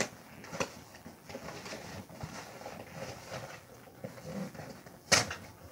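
Paper rustling and crinkling as it is handled, with a sharp click at the start, a smaller one just after, and a louder sharp knock about five seconds in.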